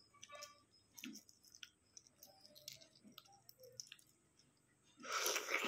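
Balut eggshell being cracked and peeled by hand: scattered small clicks and crackles of the shell. Near the end comes a loud noisy rush lasting about a second.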